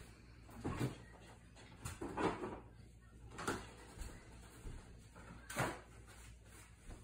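A few separate knocks and clatters of things being handled and put down in a kitchen, four in all, over a faint steady low hum.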